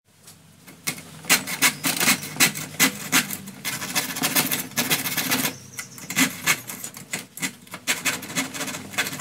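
Thin-bladed hand saw cutting wood in quick back-and-forth strokes, about three to four a second, with a short pause a little past halfway.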